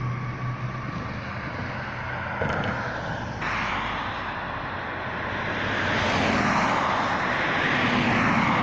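Road traffic: a broad roar of passing vehicles that jumps up about three and a half seconds in and swells louder from about six seconds on.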